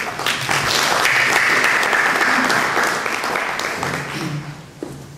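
Audience applauding, swelling quickly and dying away after about four seconds.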